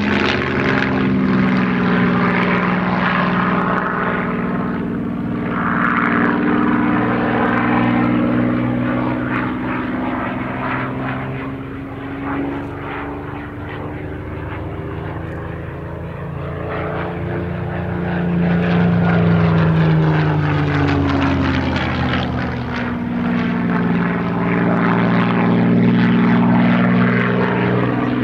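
Supermarine Spitfire Mk XVI's Packard Merlin V12 engine running as the fighter flies overhead. The note slides up and down in pitch and swells and fades several times, loudest about a third of the way in, again near two-thirds and near the end.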